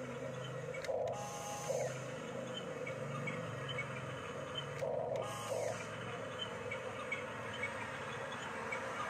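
Electric drive motors and gearboxes of a Huina 1569 RC bulldozer whirring steadily as it pushes soil, with louder bursts about a second in and again about five seconds in.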